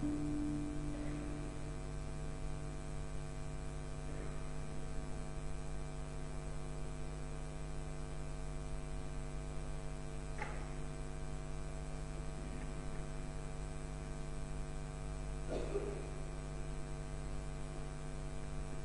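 Steady electrical mains hum with many evenly spaced overtones, with a last musical note fading out in the first couple of seconds. Two faint brief sounds come about 10 and 16 seconds in.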